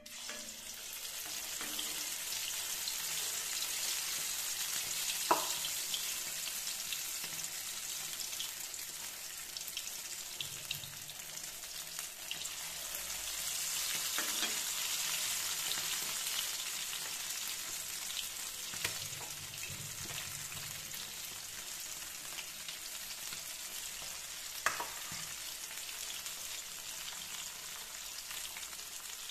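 Cabbage and potato pakodas deep-frying in hot oil in an iron kadhai: a steady, high sizzle. Two sharp clicks stand out, about five seconds in and again about five seconds before the end.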